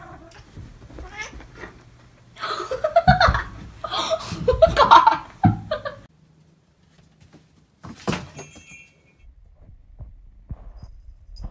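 Domestic cat yowling and meowing loudly, several drawn-out bending cries over about three seconds, followed a couple of seconds later by a single sharp knock.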